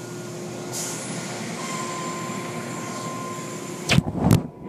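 Automatic tunnel car wash running: a steady rush of water spray and machinery hum with a faint steady tone. Two loud thumps come close together about four seconds in.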